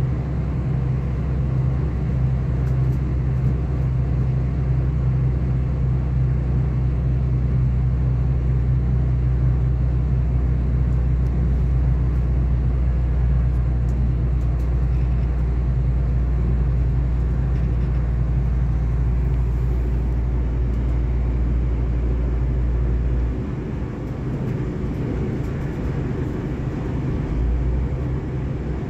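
Running noise inside a moving V/Line diesel passenger train: a steady rumble with a deep drone underneath, which drops away near the end.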